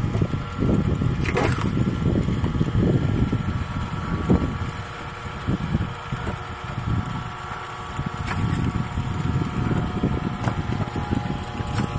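Screw-cone log splitter running and boring its threaded cone into a log round, a steady low machine drone with uneven crunching of the wood and a couple of sharp cracks as the round splits.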